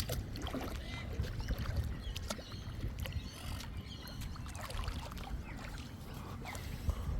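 Lake water splashing and lapping as people move about in the shallows, in short irregular splashes over a steady low rumble.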